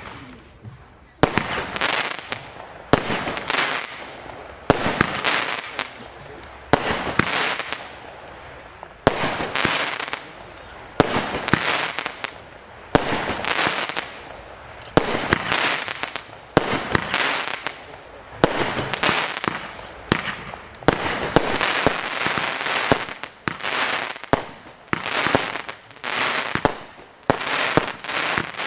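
Lesli Tantor 25-shot firework cake firing shot after shot. Each shot is a sudden bang that trails off. They come about every two seconds, then faster, roughly one a second, near the end.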